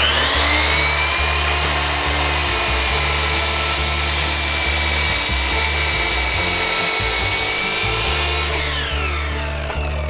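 Sliding compound miter saw spinning up with a rising whine, running through a cut in a kiln-dried cherry board, then winding down with a falling whine near the end. Background music with a steady beat plays underneath.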